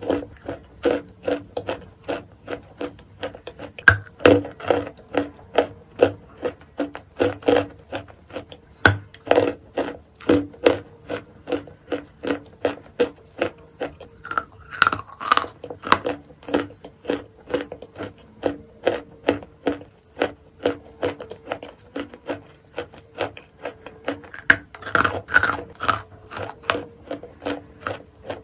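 Close-up chewing of a mouthful of wet chalk mixed with clay paste, about two chews a second, with a faint steady hum underneath.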